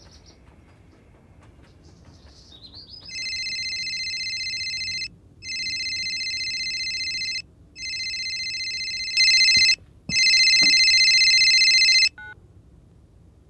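Smartphone ringing: a steady electronic ring in four pulses of about two seconds each, growing louder near the end. It cuts off about twelve seconds in as the call is answered, with a short beep.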